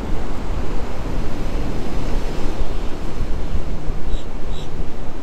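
Wind buffeting the microphone over the steady wash of ocean surf breaking below the pier. About four seconds in come two short, high chirps close together.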